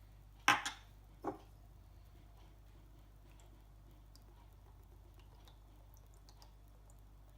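Two sharp clinks of a spoon against a bowl, about half a second and just over a second in, the first louder; otherwise only faint small taps.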